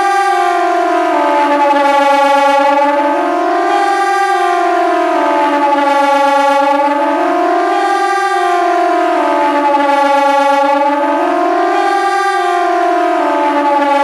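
Kockum Sonic KTG 10 electronic siren sounding the Swiss "general alarm" signal through its ring of horns. It is a loud tone that glides up and down, rising and falling about once every four seconds.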